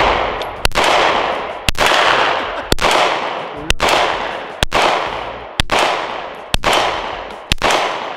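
Smith & Wesson M&P pistol firing a steady string of eight shots, about one a second, each shot followed by a long echo that dies away before the next.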